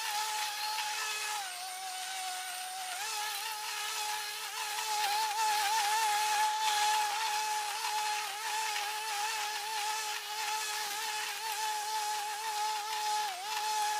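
Electric walk-behind lawn mower running while cutting tall grass: a steady motor whine over a hiss, its pitch sagging for about a second and a half near the start and briefly again near the end as the thick grass loads it down.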